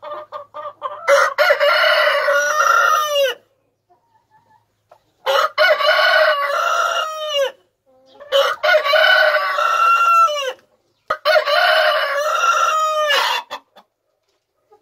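Four long rooster crows, each about two seconds, ending in a falling note. There are a few short clucks before the first crow.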